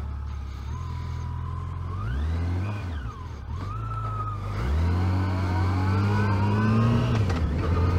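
Yamaha FJR1300's inline-four engine idling, then revving up and back down briefly about two seconds in. From about five seconds in the motorcycle pulls away, its pitch climbing steadily, with a gear change near the end.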